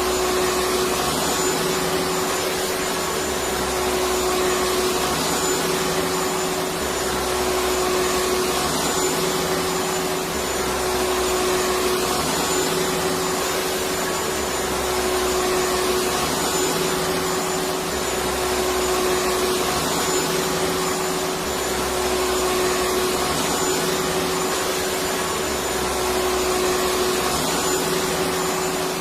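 Electric vacuum cleaner running steadily: a continuous whooshing whir with a steady hum, and a faint low pulse that repeats every three to four seconds.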